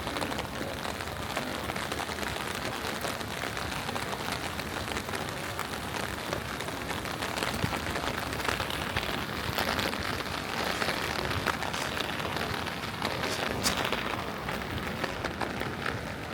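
Rain falling steadily: an even hiss made of many small drop ticks, with a few louder drops here and there.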